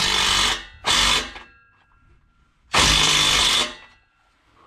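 Power drill driving a socket to tighten exhaust worm-gear clamps. It runs in short bursts: one stops about half a second in, a brief one follows about a second in, and another longer one comes near three seconds in.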